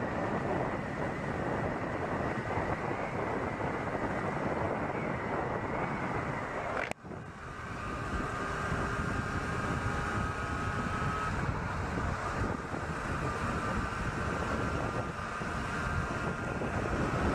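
Yamaha FZ6 Fazer 600 inline-four motorcycle engine running steadily under way, heard through heavy wind noise on the rider's chest-mounted microphone. The sound breaks off abruptly about seven seconds in and resumes at a slightly lower, steady engine note.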